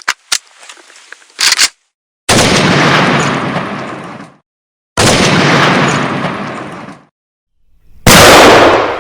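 A few sharp clicks and a short rattle, then three heavy gunshots about three seconds apart, each a sudden loud blast followed by a long fading rumble.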